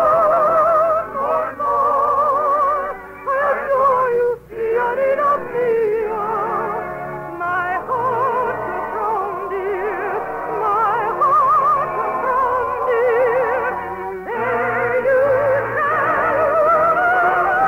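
A soprano singing an operetta song in a trained, operatic style with wide vibrato on long held notes, over an orchestra. The voice breaks off briefly about four seconds in and again about fourteen seconds in.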